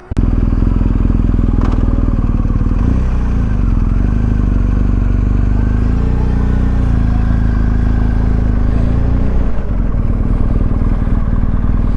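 BMW R1250GS boxer-twin motorcycle engine running, its pitch stepping up about three seconds in and dropping again near the end.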